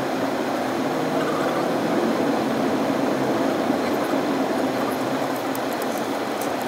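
A car driving along a road: steady engine and tyre noise.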